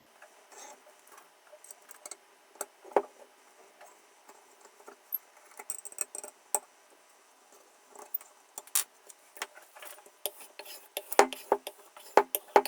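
Irregular light clicks and taps of small hard objects being handled, becoming louder and more frequent near the end.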